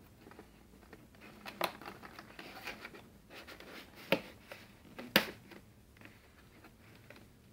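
Cardboard box insert being handled as the twist ties holding a small RC crawler's wheels are undone: light scraping and rustling, with three sharp clicks or knocks, the loudest about five seconds in.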